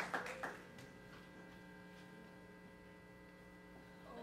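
Faint steady electrical hum from the stage amplifiers and PA system, several constant tones with no playing. The last of the applause dies away in the first half second.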